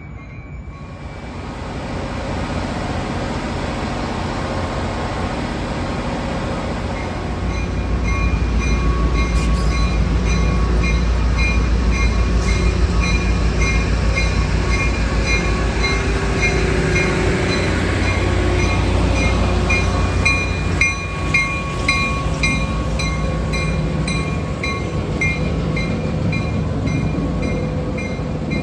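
A train rolling past, its rumble building over the first several seconds and staying heavy through the middle, with a regular clicking about twice a second running alongside.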